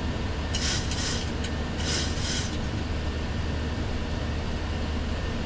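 Steady low rumble of airflow and engine noise on a Boeing 737-700 flight deck during the climb after takeoff, with a few brief hissing rustles in the first half.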